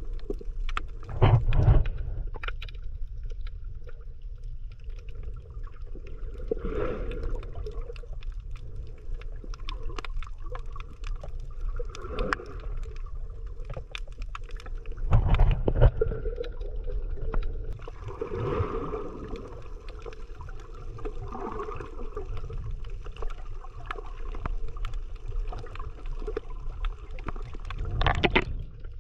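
Underwater sound picked up by a submerged camera: a steady muffled rumble of moving water with scattered faint clicks, and a louder swell of sloshing water noise every few seconds.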